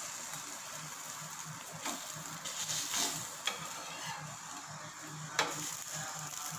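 Egg-and-bread omelette sizzling on a hot flat griddle while a metal spatula scrapes under it and folds it over. A few sharp clicks come from the spatula striking the pan.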